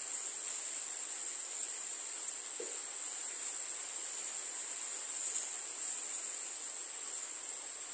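Steady, high-pitched insect chorus over an even hiss of falling rain and roof runoff splashing into a plastic tub, with a brief louder sound about five seconds in.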